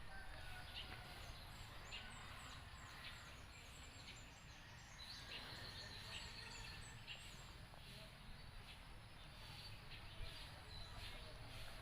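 Faint birdsong: many small, high chirps repeating quickly, with scattered brief calls, over a low, steady background hum.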